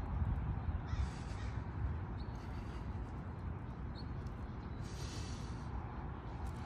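A bird giving two harsh calls, about a second in and again about five seconds in, over a steady low rumble.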